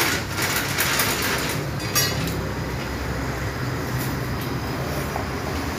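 Chain block chains rattling and clinking, with a sharper metal clank about two seconds in, as a car engine hangs from the hoist during removal.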